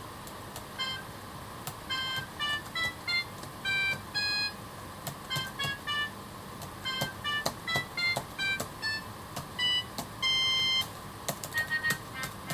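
Short synthesized MIDI notes played one at a time on a computer keyboard mapped to a button-accordion layout, forming an uneven melody, with the clicks of the keys being struck. A slightly longer held note comes near the end.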